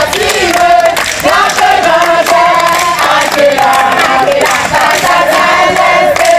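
A group of scouts singing a campfire song together, loud and continuous.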